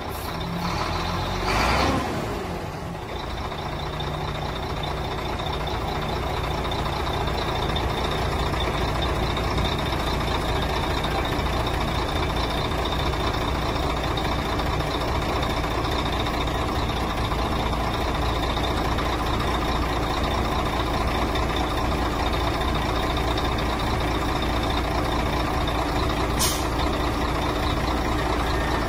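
HOWO 6x4 dump truck's diesel engine running steadily while it powers the tipper's hydraulic lift, growing louder over the first several seconds and then holding. A brief hiss of air comes about two seconds in.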